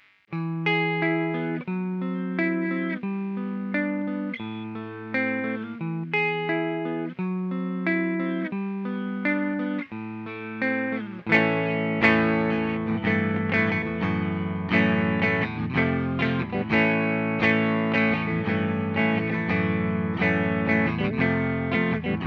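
Electric guitar played through a Marshall RG-1 Regenerator modulation pedal, with a repeating chord pattern. About eleven seconds in, the playing turns louder and fuller, with lower notes added.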